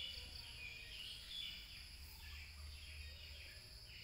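Faint evening insect chorus: a steady high-pitched buzz, with short chirps scattered over it and a low rumble underneath.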